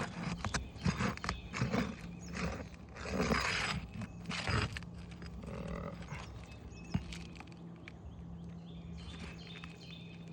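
Asphalt shingle being pried loose from its sealant strip and nails: scraping, clicks and crackling, busiest in the first half with two louder tearing scrapes around the middle, then quieter under a faint steady hum.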